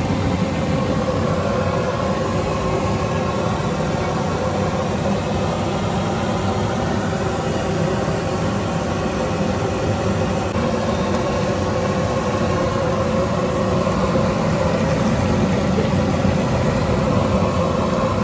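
Fish deep-frying in a wide, shallow pan of oil: a steady sizzle over a constant low rumble.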